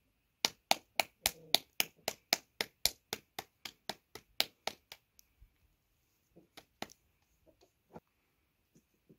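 A knife chopping on a wooden board in a quick, even rhythm, about four strokes a second. The strokes grow fainter and stop about five seconds in, and a few scattered light taps follow.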